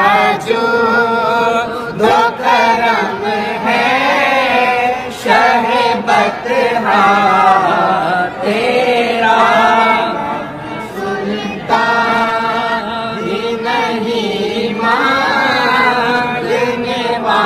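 A young boy singing an Urdu devotional naat in long, wavering held notes, pausing briefly for breath between phrases.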